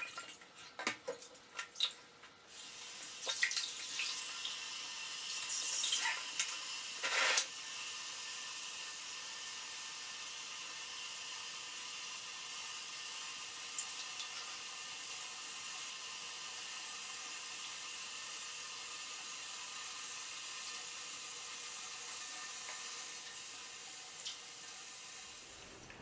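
Running water from a tap during a cat's bath: a few drips and clicks, then a steady splashing hiss that starts about two and a half seconds in and runs on until it tapers off near the end.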